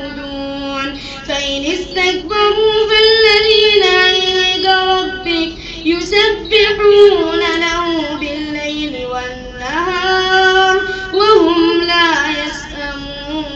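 An imam chanting the Quran solo in the melodic tajweed style, holding long notes with ornamented turns in pitch and a rising glide near the end.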